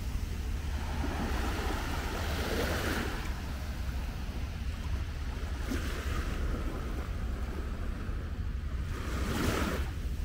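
Small waves breaking and washing up on a sandy beach, the surf swelling three times, with low wind rumble on the microphone.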